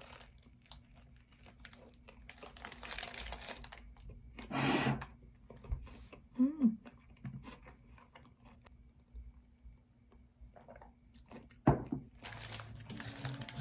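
Scattered soft clicks of a laptop keyboard and trackpad, with a paper sandwich wrapper crinkling in bursts. A sharp knock comes near the end.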